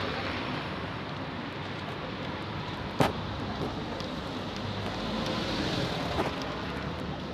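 Steady street noise with traffic, and one sharp click about three seconds in.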